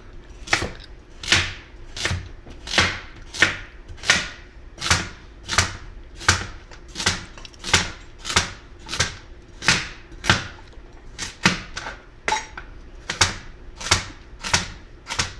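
Chef's knife slicing raw carrots into thin rounds and tapping down on a plastic cutting board: a steady chop about every three-quarters of a second, with two quicker chops a little past the middle.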